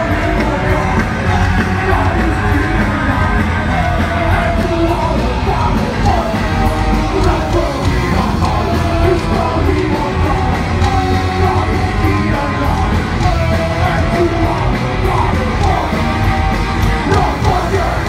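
Punk rock band playing live: distorted electric guitars, bass and drums, with shouted singing over a steady driving beat.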